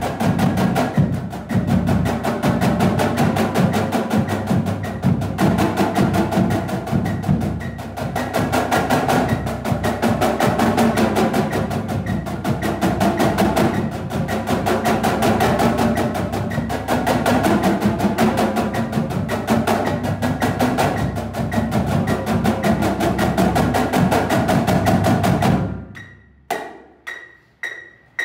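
A line of marching snare drums playing an exercise together, dense fast strokes and rolls in unison. About 26 seconds in the playing stops, leaving evenly spaced pitched clicks about two a second.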